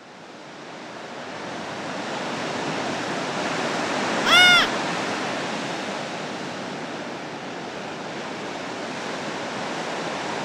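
Sea surf: a steady wash of waves that fades in over the first couple of seconds. About four seconds in comes a single short gull cry, the loudest sound.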